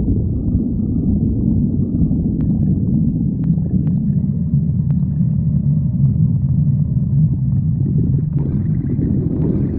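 A person's stomach growling from hunger, recorded close up: a continuous low rumble with a few faint clicks, turning brighter and noisier near the end.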